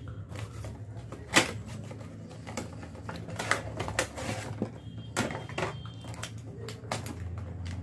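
A small cardboard product box being opened and a clear plastic packaging tray slid out of it: irregular clicks, taps and rustles of cardboard and plastic, the sharpest about a second and a half in, over a steady low hum.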